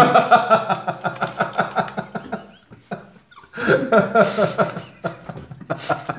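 Two men laughing hard, rhythmic bursts of laughter that fade after a couple of seconds and break out again about three and a half seconds in.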